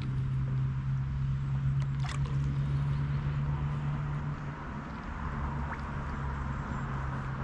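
A steady low motor hum, with a single click about two seconds in.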